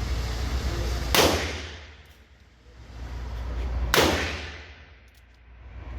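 Two handgun shots about three seconds apart on an indoor range, each a sharp crack; after each one the background falls away and slowly comes back up.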